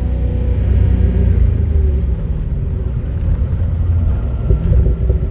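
2008 Chevrolet Corvette Z06's 7.0-litre LS7 V8 running while the car is driven, a steady low rumble.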